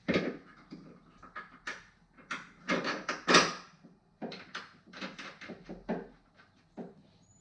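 Irregular knocks and clacks of metal tools and suspension parts being handled, about a dozen in all, the loudest right at the start and around three seconds in.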